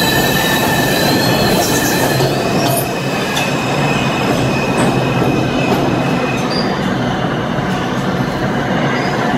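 R160 subway train running along the track, its wheels squealing with high, wavering whines that die away about two-thirds of the way through. A few sharp clicks from the wheels passing over rail joints come through the steady running rumble.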